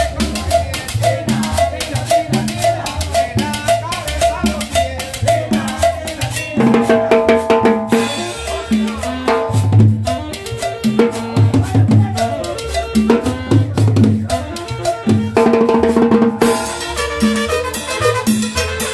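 Live tropical dance band playing: drum kit and cymbal keeping a steady beat, with upright bass, a metal scraper, saxophone and trumpet. Sustained horn notes come in about six seconds in.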